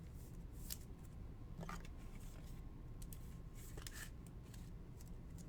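Faint handling of trading cards: soft rustles and scattered light clicks and snips.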